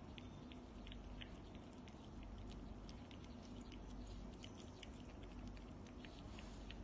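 Cats eating wet cat food from bowls: faint, quick, irregular little clicks of chewing and lapping.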